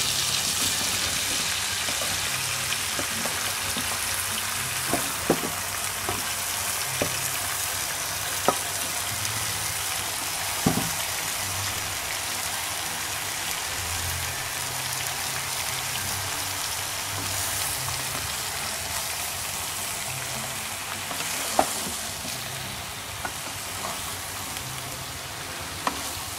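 Spiced masala sizzling steadily in a frying pan as chunks of bottle gourd are added and moved about with a wooden spatula, with a few sharp knocks against the pan.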